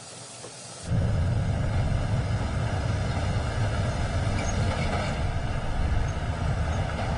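Steady road and wind rumble of a vehicle driving at speed, heard from the moving vehicle. It cuts in suddenly about a second in.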